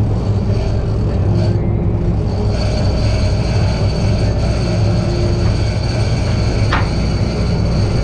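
Boat engine running at a steady pitch, a constant low hum. A thin high whine joins about a third of the way in, and there is a brief rising squeak near the end.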